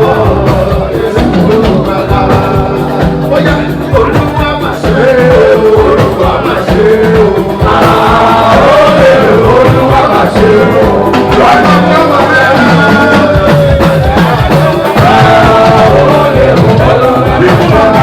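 Loud music with a steady beat and a singing voice, played for a procession.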